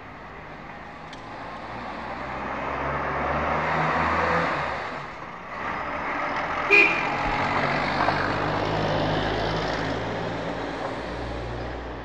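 Street traffic: vehicles passing with engine hum and tyre noise, swelling as one goes by about four seconds in and again after a short lull. A brief, sharp, high-pitched sound about seven seconds in is the loudest moment.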